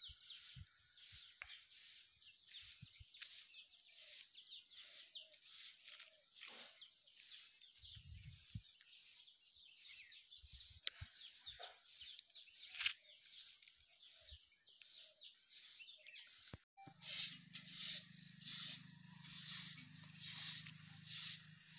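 Faint birds chirping, with a soft high pulse about twice a second. About seventeen seconds in, a short Indian grass broom (jhadu) starts sweeping a dirt yard: louder, regular swishes about two a second over a low steady hum.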